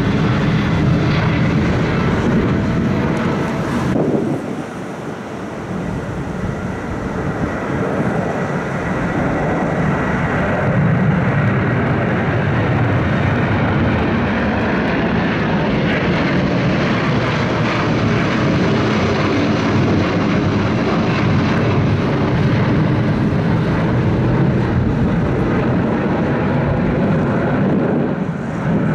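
Jet engines of twin-engine widebody airliners climbing out after takeoff. First a Boeing 777's engines, with a faint whine over the noise. After a short dip about four seconds in, an Airbus A330's engine noise swells and stays loud as it passes overhead.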